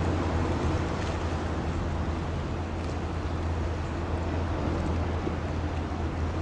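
Steady outdoor noise by the sea: a constant low rumble under an even hiss of wind and water.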